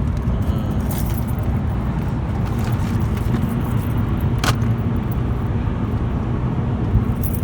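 Steady low road and engine rumble inside a moving car's cabin, with a sharp click about four and a half seconds in.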